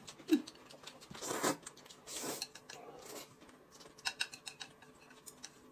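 Faint eating sounds at a table: chopsticks clicking against a ceramic bowl and plate, with a few short slurps of noodles, scattered irregularly.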